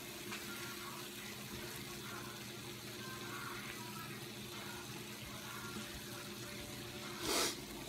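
Cornbread balls deep frying in hot oil in a pot: a steady sizzle. A brief louder burst of noise comes near the end.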